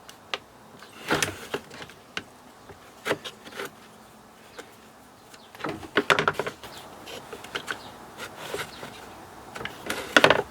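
Small clicks and rattles of a battery chainsaw's chain adjuster being turned and its bar and plate handled, in scattered short clusters. The adjuster turns without locating in the plate, so the chain does not tension.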